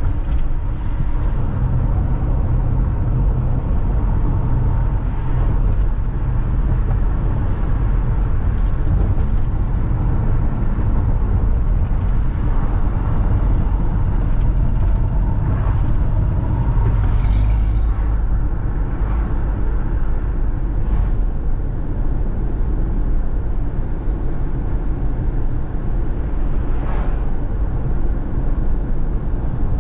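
Steady low rumble of a car driving at road speed, tyre and engine noise heard from inside the cabin. A few faint brief whooshes come near the middle and near the end, likely passing traffic.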